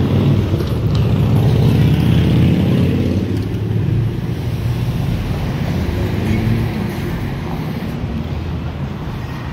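A motor vehicle passing on the city street, its engine loudest in the first three seconds or so and then fading away, over a steady low rumble of wind on the microphone.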